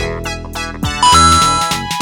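Upbeat, playful background music: bouncy keyboard notes in a steady rhythm, with a bright held chord coming in about a second in.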